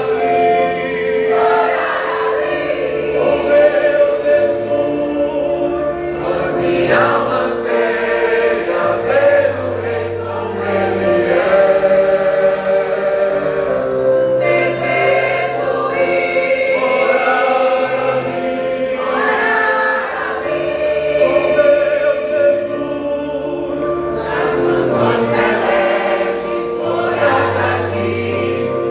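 A church vocal group singing gospel music as a choir, the voices in harmony over a held bass accompaniment that changes note every couple of seconds.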